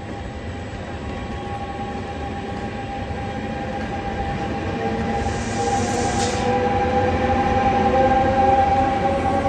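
Trenitalia E.464 electric locomotive hauling Vivalto double-deck coaches passes close by, its traction equipment whining in steady tones, one of them slowly rising in pitch, the whole sound growing louder as it nears. A brief hiss comes about five seconds in and lasts about a second.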